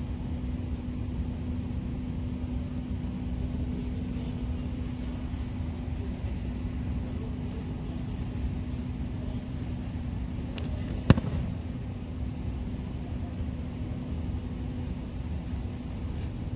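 Steady low hum of a large hall, broken about eleven seconds in by a single sharp slap on the tatami: a judoka's breakfall as a throw lands.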